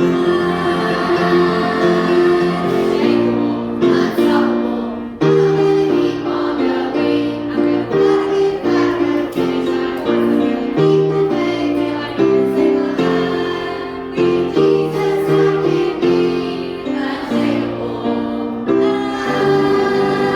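A Christian children's song, with a group of voices singing together over instrumental backing.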